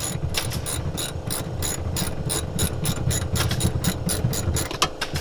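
Hand ratchet wrench clicking in a steady run, about five or six clicks a second, as a truck seat's mounting bolt is backed out.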